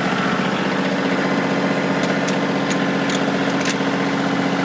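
Kioti CK2610 compact tractor's three-cylinder diesel engine running steadily with the RPMs raised. A few short, sharp clicks sound over it about two to three and a half seconds in.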